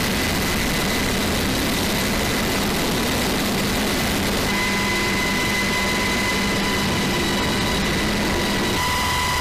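Medevac helicopter's engines and rotor running, heard from inside the open cabin: a loud, steady rush of noise with a high, even whine over a low hum.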